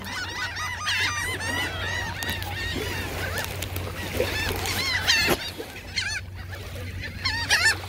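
A flock of birds calling over one another, many short squawks overlapping, with a few louder calls about five seconds in and near the end.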